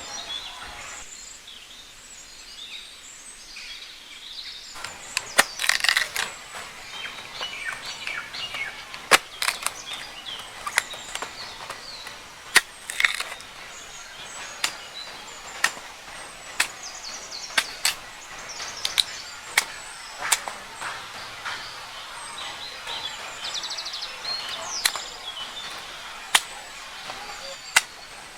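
Birds chirping, with irregular sharp knocks or clicks, the loudest sounds, coming every second or so from about five seconds in.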